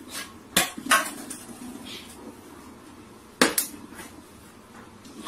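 A plastic water bottle knocking and clattering against a hard shelf as a cat bats at it: two sharp knocks about half a second apart near the start, then two more about three and a half seconds in.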